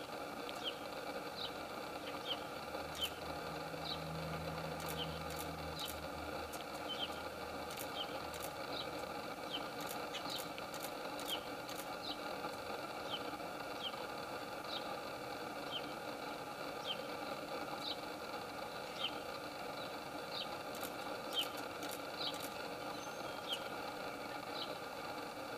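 A steady hum, with short high chirps repeating a little more than once a second and scattered faint ticks.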